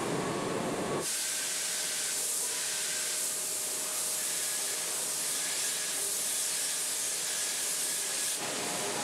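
Steady high hiss of industrial painting robots spraying paint onto a car body in a paint booth, with a faint steady tone beneath it. It starts abruptly about a second in, after lower-pitched factory noise, and stops abruptly near the end.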